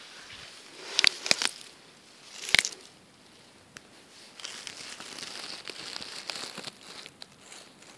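Grass blades brushing and crackling against the camera's microphone as it is pushed in among them. There are a few sharp crackles about a second in and again at about two and a half seconds, then a steady rustling through the middle.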